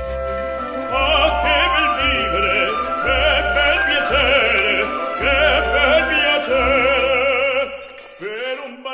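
Background music: an operatic voice singing with vibrato over orchestral accompaniment, fading down near the end.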